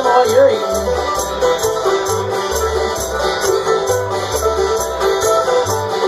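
Live bluegrass band playing: banjo, acoustic guitar and mandolin picking over a steady bass line of separate, evenly spaced low notes.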